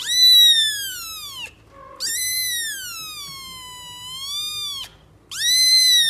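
Kitten meowing three times in long, high-pitched cries, each rising then falling in pitch. The first is the loudest and the middle one the longest, with a dip and lift in pitch before it fades.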